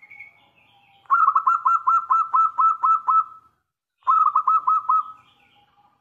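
Zebra dove (perkutut) singing its staccato cooing song: a rapid run of about ten clipped notes, a short pause, then a shorter run of about five.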